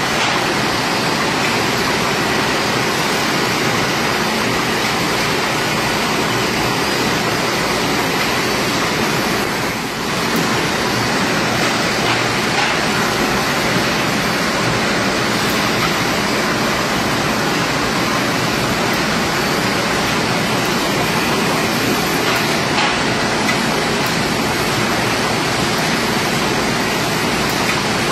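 Automatic packaging line running: a steady, dense machine noise from its belt conveyors and flow-wrapping machine.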